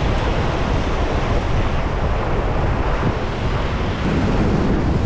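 Loud wind buffeting the microphone, over the steady wash of ocean surf.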